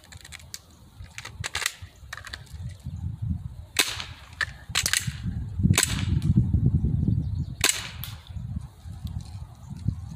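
CO2-powered BB pistol, a Glock replica, firing several single shots: sharp pops spaced irregularly a second or more apart, over a low rumbling noise.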